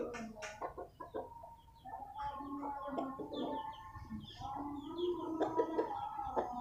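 Chickens clucking, a Bangkok gamecock and a hen, in drawn-out calls of about a second each, with faint high chirps over them.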